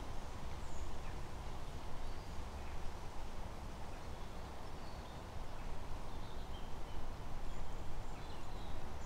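Outdoor pond-side ambience: wind on the microphone as a steady low rumble, with a few faint, short bird chirps scattered through it.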